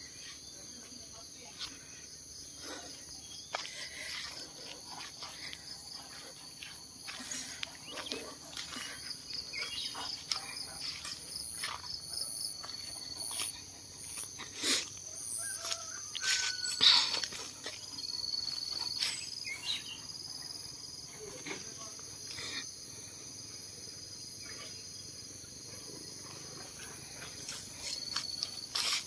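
Insects chirring steadily in several overlapping high-pitched layers, some pulsing. Scattered short clicks and knocks, the loudest about 17 seconds in.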